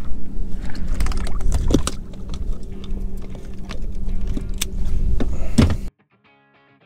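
Steady low rumble with a constant hum, and scattered knocks and thumps from handling gear on a fishing boat. It cuts off suddenly about six seconds in, and faint music follows.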